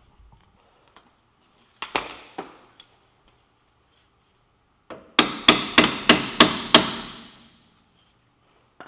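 Hammer striking a CV axle, metal on metal: a few light taps, then a run of about six hard ringing blows, roughly three a second.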